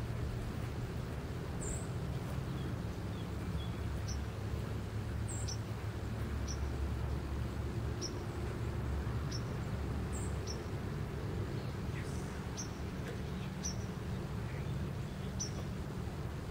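Small birds chirping, short high chirps about a second apart, over a steady low rumble.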